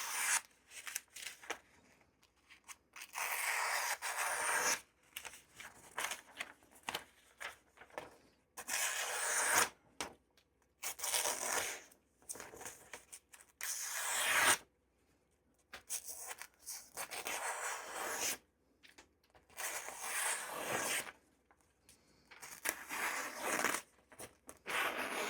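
A Victorinox Fibrox 8-inch chef's knife slicing through newspaper in about eight separate cuts, each a second or two long, a few seconds apart. The edge has been deburred on a leather strop, so it cuts the paper cleanly.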